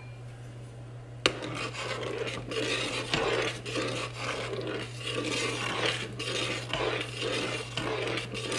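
A spoon stirring a metal saucepan of coconut milk and corn kernels, scraping the pan in rough strokes about twice a second, with a sharp clink of the spoon against the pan just over a second in.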